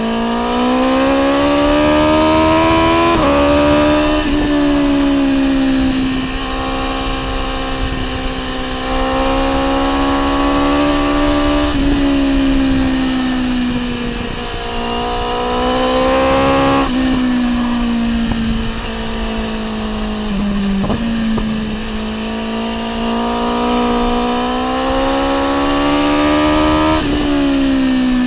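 BMW S1000R inline-four engine through an Akrapovic exhaust, accelerating hard and shifting gears. Its pitch climbs, then drops suddenly at each shift, about eight times.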